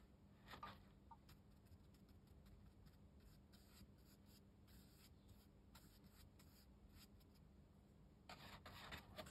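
Faint scratching of a watercolour brush on rough cotton rag paper, a little louder near the end.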